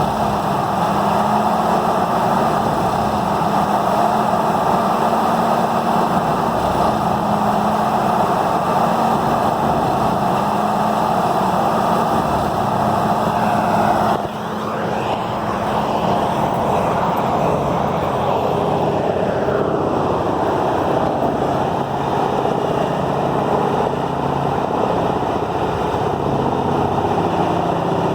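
Peterson 5710D horizontal grinder's 1125 hp diesel engine running loud under heavy grinding load. About halfway through the sound changes suddenly, dipping briefly, and the engine note drops lower and carries on steadily.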